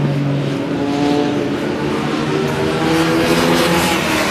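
Several motorcycle engines accelerating hard along a race-track straight. Their pitch climbs and drops back as they shift up through the gears, and the sound swells as a bike draws closer near the end.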